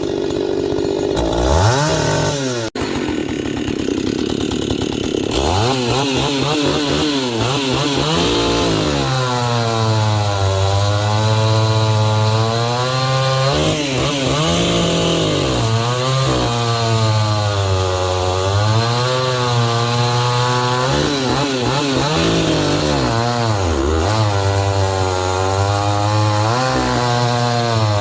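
Husqvarna 162SE two-stroke chainsaw running, its throttle opened and let off again and again: low and uneven for the first few seconds, then held at high revs for several seconds at a time with repeated dips in pitch.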